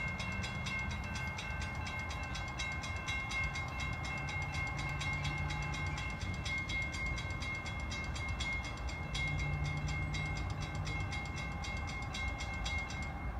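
Railroad grade-crossing warning bell ringing in rapid, evenly spaced strikes, the signal that a train is approaching the crossing; it stops near the end. A low, steady rumble runs underneath.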